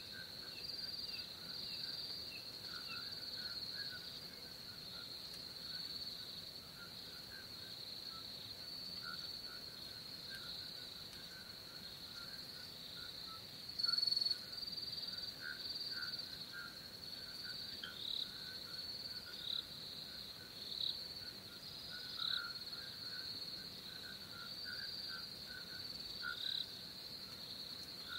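Crickets and other night insects chirping steadily in a high, continuous chorus, with a second, lower chirping that comes and goes and one louder chirp about halfway through.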